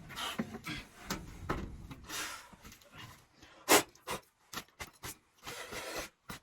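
Irregular rubbing and scraping with scattered knocks from hands-on furnace cleaning work, with one sharp knock a little past the middle.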